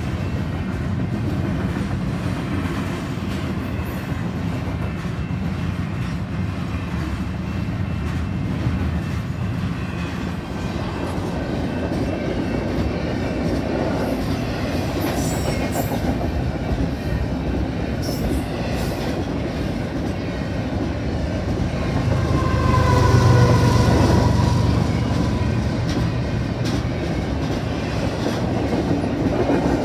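CN double-stack intermodal freight train rolling past, its well cars making a steady rumble with clickety-clack of wheels over the rails. About two-thirds of the way through it grows louder for a few seconds, with a high whine over the rumble.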